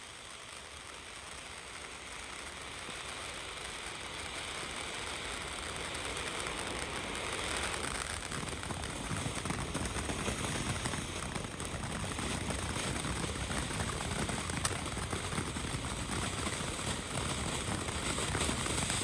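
Firework fountain burning with a steady spraying hiss that grows louder, with crackling mixed in over the second half.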